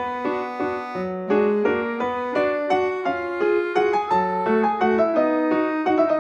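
Background music: a piano melody played as a steady run of notes.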